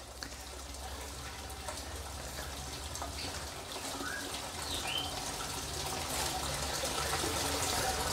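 Water pouring and splashing steadily, getting gradually louder, over a low steady hum, with a few short bird chirps about four and five seconds in.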